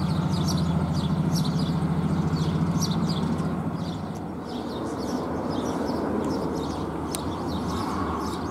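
Small birds chirping continuously, over a low, steady pulsing mechanical hum that fades away about four seconds in.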